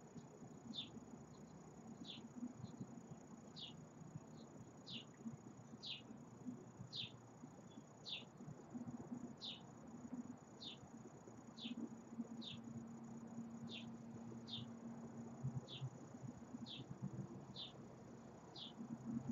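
A small bird's short, high chip repeated steadily about once a second, each note dropping quickly in pitch, over a faint, on-and-off low hum.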